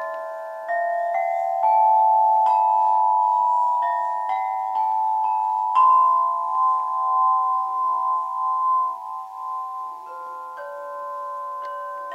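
Crystal harp, its clear glass rods struck one after another in rising runs, each bell-like note ringing on and overlapping the next; a fresh rising run begins near the end.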